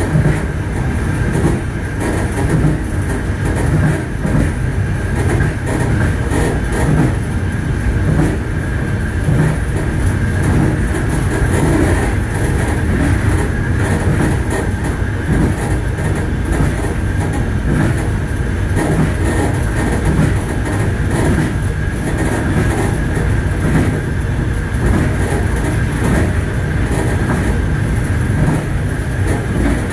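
Passenger train's wheels running over the rails: a steady rumble with the irregular clickety-clack of the wheels over rail joints and a thin steady high tone above it.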